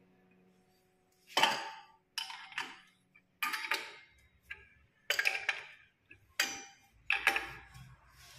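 A steel wrench clinking against the chrome connecting legs and wall flanges of a wall-mounted sink mixer as it is set on and turned to tighten them: about eight sharp metallic clinks, unevenly spaced, each with a short ring.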